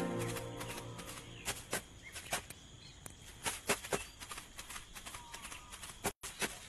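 Light, irregular footsteps rustling and crackling through dry grass and fallen leaves. Background music fades out in the first second.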